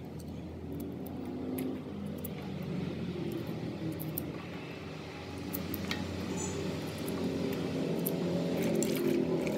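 Small wet clicks and splashes of peeled Chinese potato (koorkka) tubers being handled in water and dropped into a steel pot of water, scattered through the clip and busier in the second half, over a steady low background rumble.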